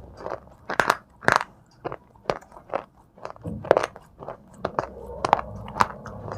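Close-up crunching and chewing of thin, brittle white shale: sharp, crisp cracks about twice a second as pieces are bitten and ground between the teeth. A steady low hum rises underneath in the second half.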